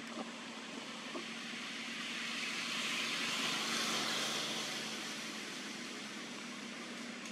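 Rushing noise of a passing vehicle that swells to a peak about halfway through and then fades, over a faint steady hum.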